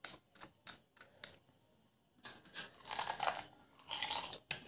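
Crisp pani puri shells being poked open with a fingertip, a few sharp cracks, then loud close-up crunching as a filled pani puri is bitten and chewed.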